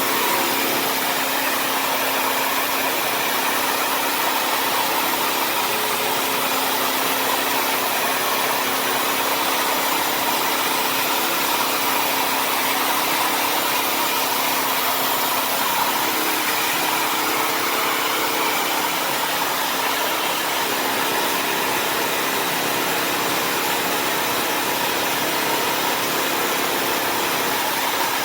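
Bissell CrossWave HydroSteam Pet wet-dry vacuum running steadily, a constant motor drone with a faint whine.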